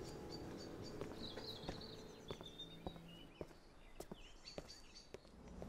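Quiet, steady footsteps of a person walking on a hard path, with faint birds chirping in the background.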